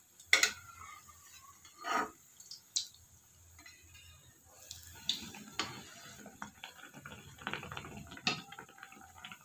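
Semolina batter cake deep-frying in hot oil in a karahi: faint sizzling and crackling of the oil, with a metal spatula knocking and scraping against the pan several times.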